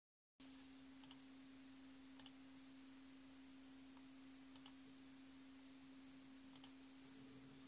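Four faint computer mouse clicks, each a quick double tick, as the shutdown menu is opened and Shut Down is chosen. A steady low hum runs underneath.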